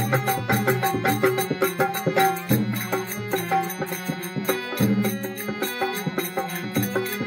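Harmonium accompanying a man singing a devotional bhajan, with a steady rhythmic percussion beat.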